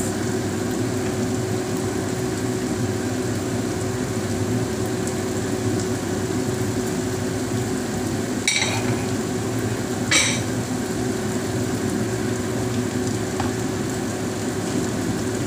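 Vegetables sizzling steadily in a frying pan over a gas burner, with a steady hum beneath. Two sharp clinks come about eight and a half and ten seconds in.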